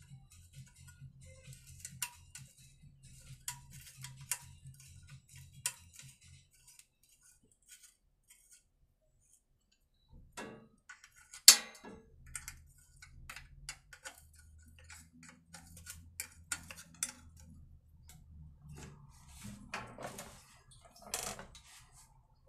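Small metal clicks, taps and knocks of tools and parts being handled while the carburetor's air-filter adapter is bolted up on a petrol generator, with one sharp, loud click about eleven seconds in and a pause of a few seconds before it.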